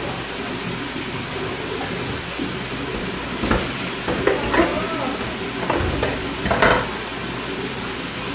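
Pan of shredded cabbage and bean sprouts sizzling steadily as the vegetables cook down. About halfway through there are a few brief knocks and clatters.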